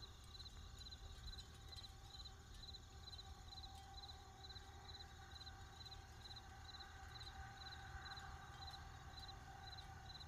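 Near silence: faint room tone with a soft, high chirp repeating evenly a little over twice a second.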